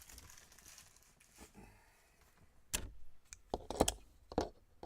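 A few light clicks and taps on a desk, sparse at first and bunched together past the middle, with the loudest around three-quarters of the way in.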